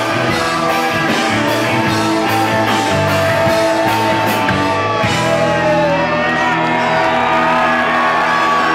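Live rock band playing: shouted, sung vocals over electric guitar and bass.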